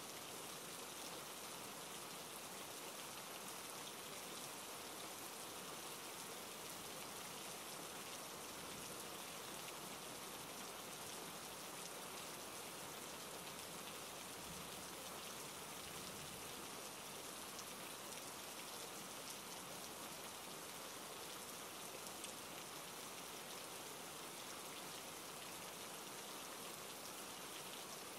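Steady, soft rainfall: an even hiss of many small drops, unchanging throughout.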